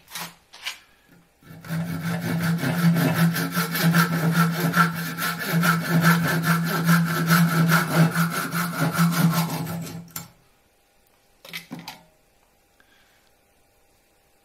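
Fine-toothed handsaw cutting through a wooden dowel plug where it sticks out of a deer-antler whistle, trimming it off in quick, even back-and-forth strokes for about eight seconds before stopping. A couple of light knocks follow near the end.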